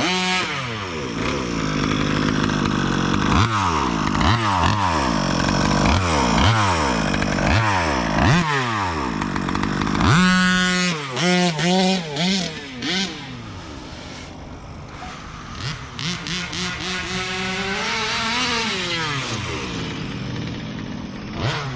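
Two-stroke petrol engine of an HPI Baja 5B 1/5-scale RC buggy revving up and down over and over as it is driven. A sharp high rev comes about ten seconds in, then the sound goes quieter for a few seconds and builds again near the end.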